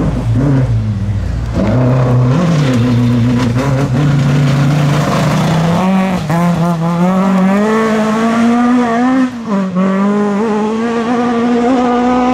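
Ford Escort Mk2 rally car's engine at full throttle. The engine note climbs steadily as it accelerates, with sharp dips at gear changes about six and nine and a half seconds in.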